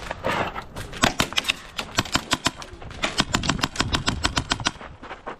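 Airsoft guns firing in an exchange of shots: a string of sharp clicks and snaps, irregular at first, then coming in quick clusters of several a second before stopping near the end.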